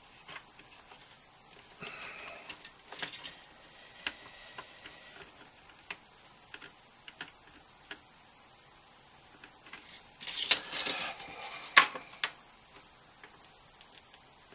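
Small clicks and scrapes of hands and small tools working on the opened case, battery and flex cables of a 3rd-generation iPod. There is a scraping patch about two seconds in and a louder run of scrapes and sharp clicks about ten to twelve seconds in.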